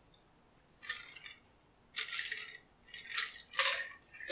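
A stirred Negroni strained from a mixing glass over fresh ice in a rocks glass: liquid splashing onto the ice and ice clinking, in four short bursts.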